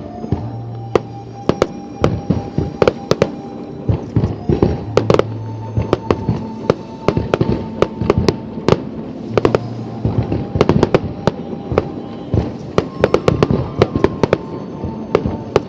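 Fireworks display going off in a rapid, irregular string of sharp bangs and crackles, several a second, with music of long held notes playing underneath.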